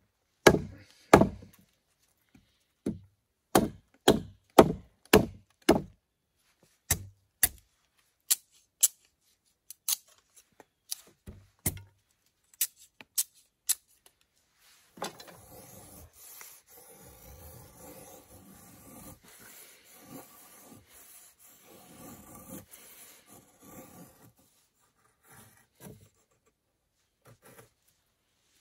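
Sharp wooden knocks, a dozen or more a fraction of a second apart, as sticks of kindling are struck. Then about nine seconds of a knife blade scraping along wood, shaving curls for a feather stick, and a few light knocks near the end.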